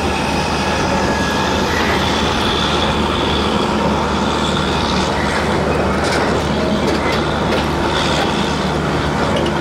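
Passenger train running on the track: a loud, steady rumble of wheels on rails with a low hum beneath it and faint thin high-pitched squeals from the wheels now and then.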